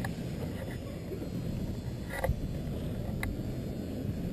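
Inline skate wheels rolling on a smooth concrete parking-garage deck: a steady low rumble, with three sharp clicks.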